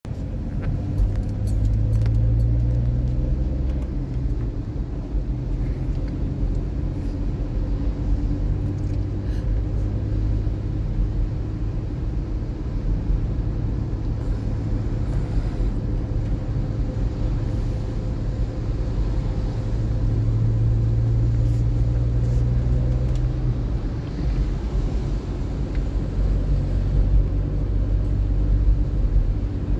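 Engine hum and road noise of a car driving on wet roads, heard from inside the cabin. The engine note swells about two seconds in and again about twenty seconds in.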